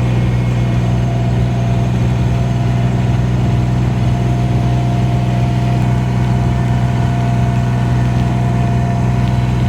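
Kubota diesel engine running steadily at an even speed, a constant low drone with a faint steady whine above it.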